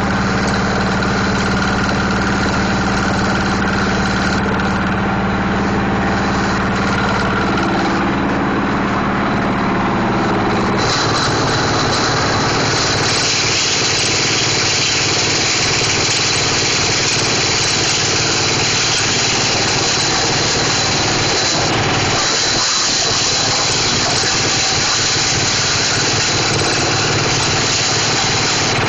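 Plastic shredder machine running steadily. About eleven seconds in, its even hum gives way to a harsher, noisier sound with a strong hiss.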